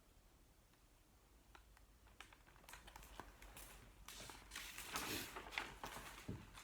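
Faint handling noise of a book: a few small clicks, then paper rustling for about two seconds in the second half as a page is turned.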